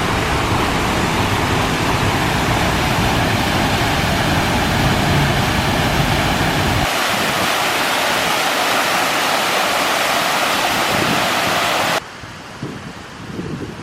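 Water pouring down a man-made waterfall in a plaza fountain: a loud, steady rush. About seven seconds in the low rumble drops away. Near the end the rush cuts off abruptly to a much quieter scene, with wind gusting on the microphone.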